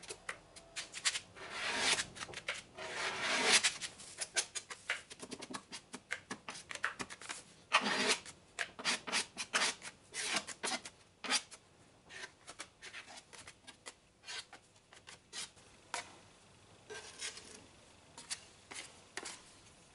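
A plastic spreader scraping fibreglass body filler across a car's wheel arch: a run of irregular rasping strokes, louder and denser in the first half.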